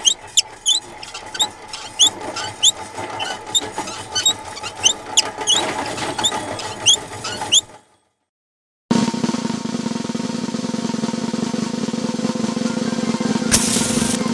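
Cartoon sound effects: quick squeaky chirps repeat for about eight seconds, then stop for about a second. A steady snare drum roll follows and swells into a bright burst near the end.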